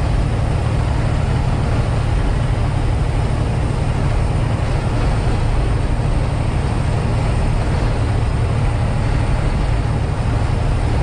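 Steady diesel engine and road noise inside a semi-truck's cab cruising at highway speed, heaviest in the low end.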